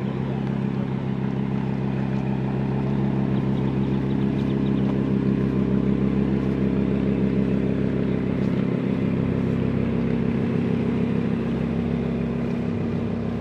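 Several supercar engines, Lamborghini Huracán V10s among them, running at low revs: a steady deep drone with no revving, a little louder around the middle.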